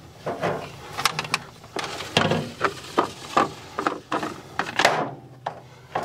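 Plastic water-softener filter housing being unscrewed and worked loose by hand: irregular knocks, clicks and rubbing of plastic on plastic.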